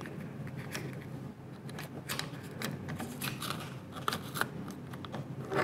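Irregular small clicks and rustles from a Hasselblad film insert being handled as the take-up spool is turned by hand, winding on the 120 roll film's paper backing to take up the tension.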